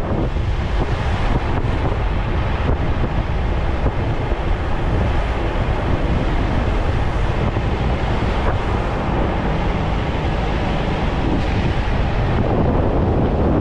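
Steady, loud wind rushing over the microphone of a camera mounted on a moving vehicle, with road noise underneath.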